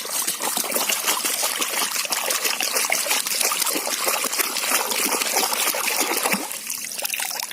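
Water trickling and splashing as a plastic toy helicopter is washed in a tub of water. The sound is busy and continuous, and it thins out near the end.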